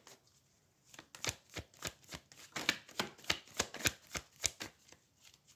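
Tarot deck being shuffled by hand: a run of soft card clicks, about three a second, starting about a second in and stopping near the end.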